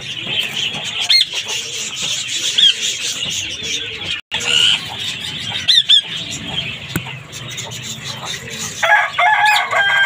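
Green parakeets in an aviary giving short, sharp screeches again and again over a steady background of bird chatter, with a longer, harsher call near the end.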